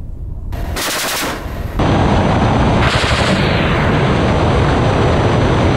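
Unguided rockets fired in a salvo from a Mi-8AMTSh helicopter's rocket pods. A rushing whoosh starts about half a second in, then from about two seconds a loud, dense, rapid crackle of the salvo runs on.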